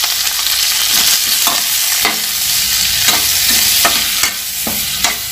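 Potatoes and cauliflower sizzling in hot oil in a steel kadhai, while a perforated steel spatula scrapes and knocks against the pan every half second or so, stirring in the ground spices.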